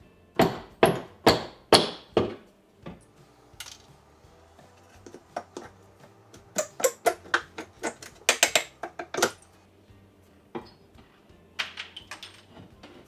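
Sharp knocks and taps from hand tools striking the wooden cabinets and the wall during demolition. About five heavy blows come at roughly two a second at the start, then a quicker run of lighter taps and knocks in the middle, and a few more near the end.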